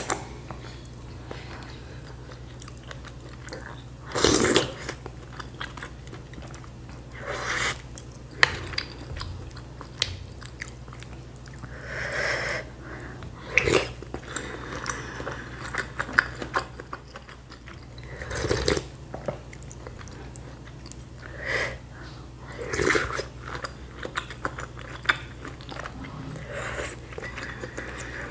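Close-miked chewing and sipping of bakso, Indonesian meatball soup with noodles, eaten from a wooden spoon, with a louder sip of broth every few seconds.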